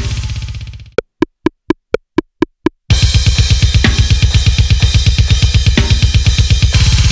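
Drum kit at an extreme metal tempo: the playing stops and rings out over the first second. Then eight quick, evenly spaced clicks count in. About three seconds in, the kit comes back in with very fast, even bass drum strokes under cymbals and snare.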